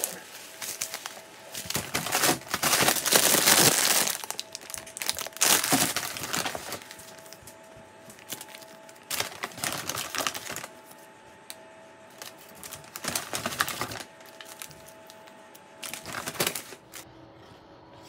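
Paper bags and plastic food packaging crinkling and rustling as they are handled, in several bursts of a second or two each with short pauses between, busiest in the first few seconds.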